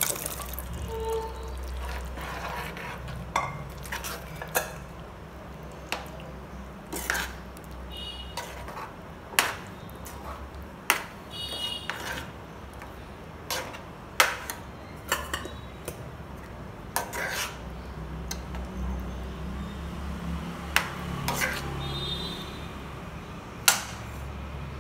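Metal spoon stirring thick vegetable kurma in a stainless-steel pan, with sharp clinks of the spoon against the pan every second or two. Cooked peas are tipped in from a steel bowl at the start. A steady low hum runs underneath.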